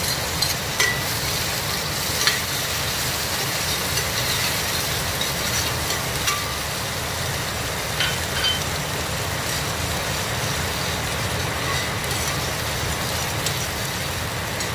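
Chopped garlic and onion sizzling in hot annatto oil in a steel pot: a steady hiss, with a few light clicks of a metal spoon against the pot.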